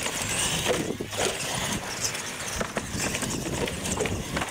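Two radio-controlled monster trucks racing side by side: a rising motor whine near the start, and the trucks clattering as they bounce over ramps and plastic barrier blocks.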